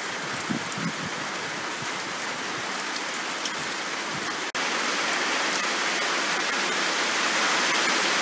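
Heavy rain falling steadily, with a few sharper ticks; it becomes a little louder about halfway through.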